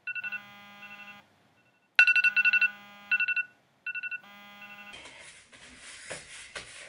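Electronic phone alarm ringtone: quick runs of high beeping tones in repeated bursts, each about a second long. About five seconds in it gives way to rustling and movement.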